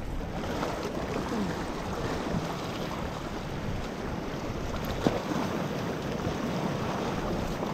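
Sea surf washing and surging over shoreline rocks, a steady rush of water, with a brief click about five seconds in.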